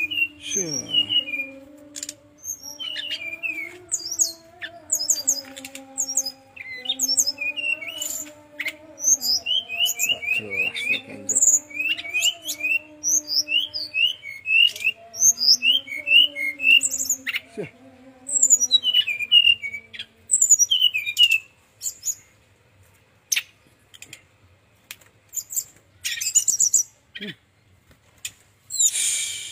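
Brown-chested jungle flycatcher singing: quick runs of high chirps and short slurred whistles, with brief pauses, and a few sharp clicks among them. A low wavering hum runs underneath for roughly the first twenty seconds.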